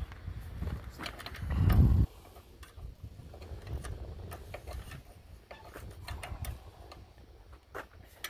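A power tool runs loudly for about a second and cuts off abruptly about two seconds in. Then come scattered light metallic clicks and clinks as a 13 mm wrench turns and tightens the engine's mounting bolts.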